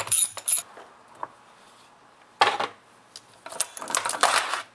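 A tool rattles on the chainsaw's bar nuts for the first half-second, a run of rapid sharp clicks. Then metal clatters as the clutch cover and chain are handled: one short clatter about two and a half seconds in and a longer rattling clatter near the end.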